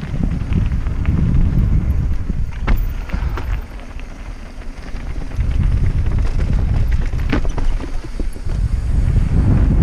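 Wind buffeting the microphone as a mountain bike rides down a trail. The heavy rumble starts suddenly, eases off a few seconds in and builds again, with scattered sharp clicks and knocks from the bike rattling over rough ground.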